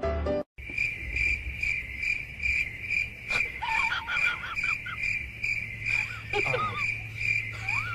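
Crickets chirping steadily, a high pulsing chirp repeating two or three times a second, after music cuts off about half a second in. A wavering whine-like tone rises and quavers over them a few times.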